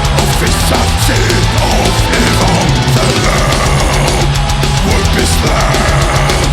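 Symphonic black/death metal playing: dense distorted guitars over sustained low bass notes and fast, steady drumming, with no vocals.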